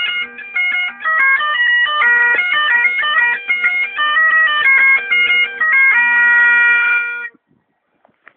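Bagpipes playing a fast reel, the quick ornamented melody running over a steady drone. The tune ends on one long held note and cuts off about a second before the end.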